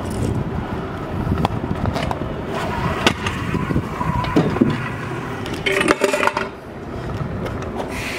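Freestyle scooter wheels rolling over pavement, with sharp clacks as the deck and wheels hit the ground, once about three seconds in and several times about six seconds in.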